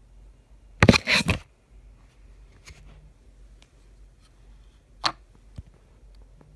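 iPod Nano 6th generation clicking on a wireless charger it does not support: a quick run of loud clicks about a second in, then a single sharp click near the five-second mark, with fainter ticks between.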